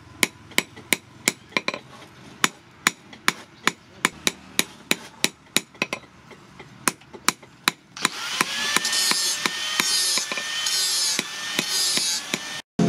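Hand hammer striking a red-hot piece of chainsaw bar on a steel post anvil, about two to three ringing blows a second. About eight seconds in, the blows give way to a steady hiss with a wavering whine, which cuts off just before the end.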